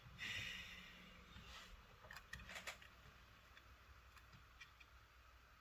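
Near silence with faint handling noises of a smartphone under repair: a short soft hiss near the start and a few light clicks around the middle.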